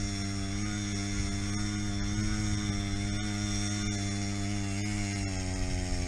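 A motor running at a steady speed, its pitch wavering a little and dipping slightly about five seconds in.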